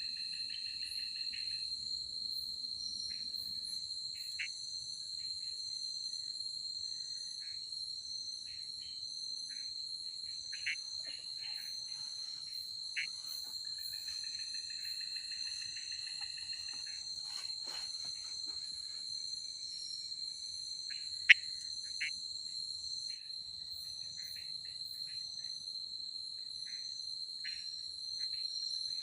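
Forest insects calling: a steady high-pitched trill that never breaks, with shorter chirping calls from other insects coming and going over it. One sharp click about 21 seconds in.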